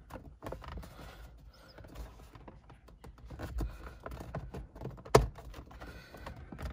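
Hard plastic steering-wheel trim being worked and pressed back into place: scattered small clicks and knocks, with one sharp click about five seconds in.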